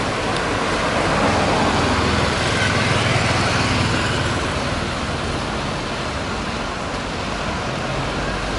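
Road traffic passing on a city street: tyre noise and the running engines of cars, a taxi and a double-decker bus. A low engine drone is strongest in the first half.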